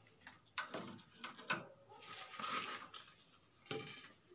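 A metal utensil scraping and clinking on a tawa griddle as charred, roasted cloves are tipped out onto newspaper: three sharp clicks with softer scraping between them.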